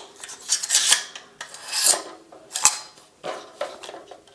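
AR-15 pistol's charging handle and bolt carrier group being worked by hand to eject a dummy round: several strokes of metal sliding against metal, with a sharp click about two and a half seconds in.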